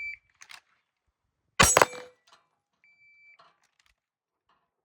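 A short electronic beep, then a single loud, sharp bang about a second and a half in that dies away quickly, then a second short beep.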